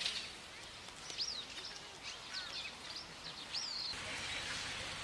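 Small birds chirping, a string of short rising-and-falling calls over a steady outdoor background hiss. About four seconds in the chirping stops and only a steady hiss is left.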